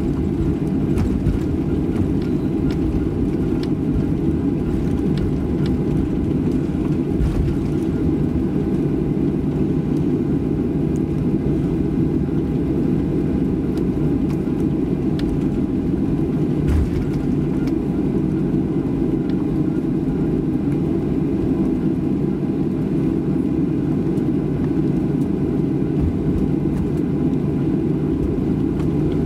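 Cabin noise inside a Boeing 737-700 airliner taxiing: its CFM56-7B turbofans at taxi power give a steady low rumble with a faint whine. A few faint clicks and a light thump about 17 seconds in.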